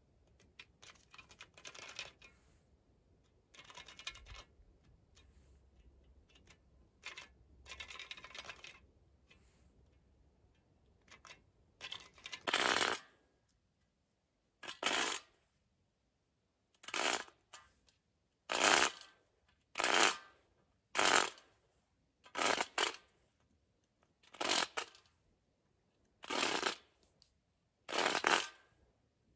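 Wooden-framed bow saw at work: faint, scattered scraping at first, then from about halfway a run of about ten loud, short rasping saw strokes, one every second or two.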